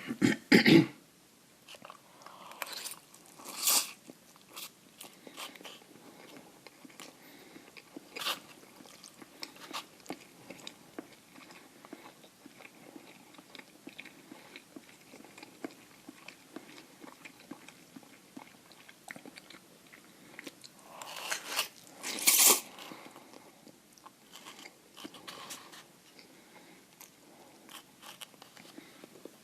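Close-miked eating of instant noodle soup: chewing and wet mouth sounds with many small clicks. There are a few louder noisy moments near the start and about four seconds in, and the loudest, longer one comes about three-quarters of the way through.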